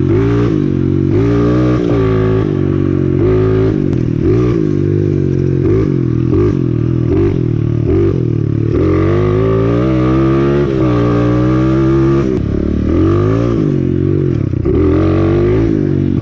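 125cc dirt bike engine being ridden hard, its pitch rising and falling again and again as the throttle is opened and closed.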